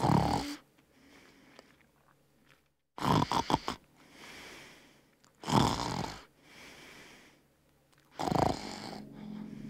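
Soundtrack of loud breathy, snore-like noise surges, four of them about every two and a half to three seconds, with faint hiss between. A low steady drone comes in near the end.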